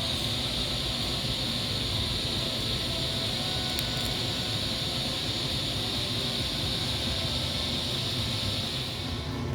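Steady hiss with a low rumble beneath it; the hiss fades out near the end.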